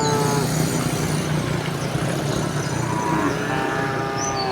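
A motor vehicle engine running close by with a steady low rumble, while a cow moos briefly at the start and again from about three seconds in.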